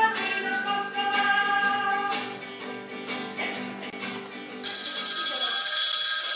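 Live music from a stage performance, steady instrumental notes over a regular beat. About two-thirds of the way in it cuts off abruptly and a steady high-pitched ringing takes over.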